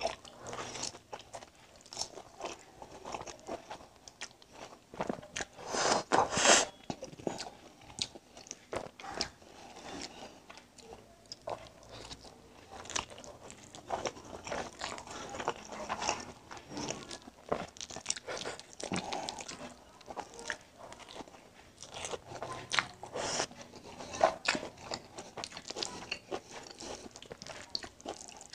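Close-miked eating sounds: a person biting and chewing mouthfuls of egg noodles and pan-fried boiled egg, with many short wet clicks and smacks. The loudest chewing comes about six seconds in.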